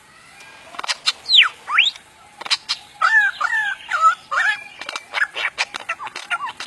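Lyrebird calling in mimicry: sharp clicks, long sweeping whistles, a stretch of warbling, then a quick run of short downward-sweeping notes.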